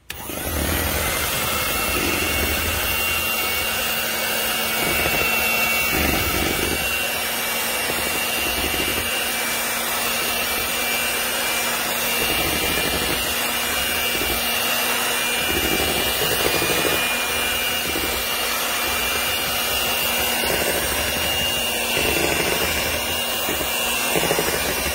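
Bear 5-speed electric hand mixer running steadily, its motor giving a high whine, beaters churning batter in a stainless steel bowl.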